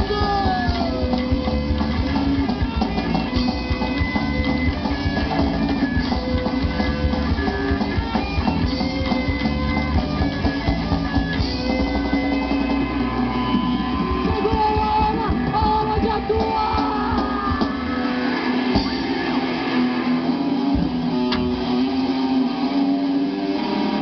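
Punk/hardcore band playing live: electric guitars, bass guitar and drum kit. From about three-quarters of the way through, the bass and drums drop away, leaving mostly guitar with a couple of sharp hits.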